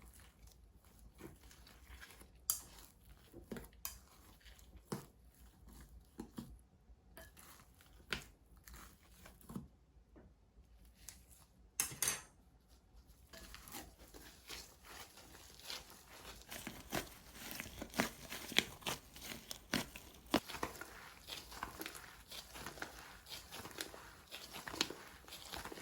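Slime being handled and squeezed by hand, giving small sticky clicks and crackling pops. The pops are scattered at first and come thick and fast from about halfway through.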